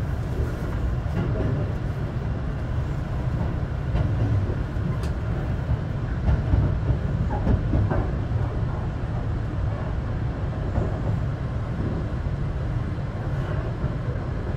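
Running noise of the Sunrise Seto sleeper train (a 285 series electric train) heard from inside the carriage: a steady low rumble with a few faint clicks.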